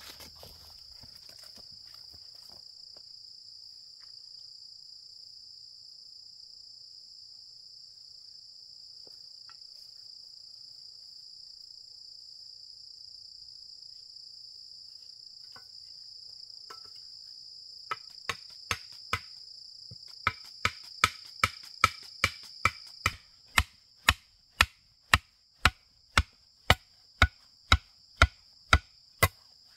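Steady high-pitched insect drone throughout. About two thirds of the way in, a run of sharp, evenly spaced chopping blows begins, at about two a second.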